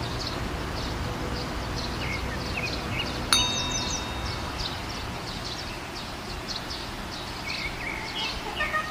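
Birds chirping over a steady low rumble, with a single bright chime struck about a third of the way in that rings on for about a second.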